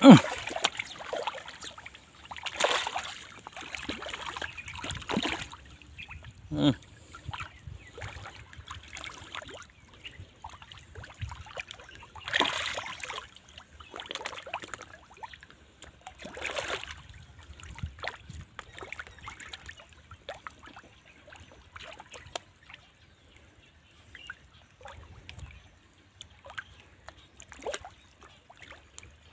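A bucket of kitchen scraps splashes into a pond right at the start, followed by scattered small splashes and swirls of water as fish feed at the surface. The splashes come irregularly, with louder bursts a few seconds in, around twelve seconds and around seventeen seconds.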